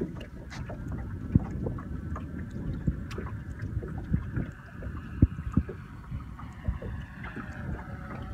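A quadcopter drone's propeller whine, faint and slowly falling in pitch as it flies away, over steady wind buffeting the microphone and several sharp knocks.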